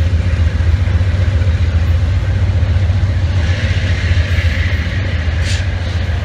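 Amtrak passenger cars rolling past at close range: a steady, loud low rumble of wheels on rail, with a higher rushing noise building from about halfway through and a short hiss near the end.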